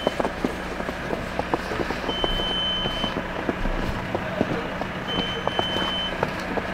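Footsteps crunching in snow, over a steady low hum. A high electronic beep, about a second long, sounds twice, three seconds apart.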